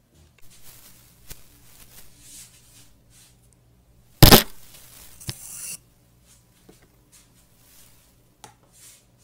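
Faint rubbing and handling, then about four seconds in a loud knock as a moulded cylinder of kinetic sand is set down on a plastic tray. A second or so of scraping and a small click follow.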